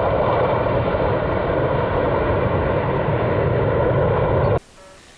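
Steady, loud jet-like roar of volcanic gas venting under high pressure. It cuts off abruptly near the end, leaving a quiet background with a few faint short beeps.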